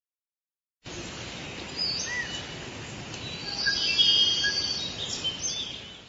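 Several small birds chirping and calling over a steady outdoor noise background; it starts about a second in and fades out near the end.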